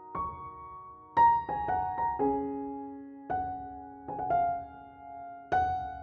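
Background music: gentle piano or electric-piano notes and chords, each struck and left to fade, several notes a second at times.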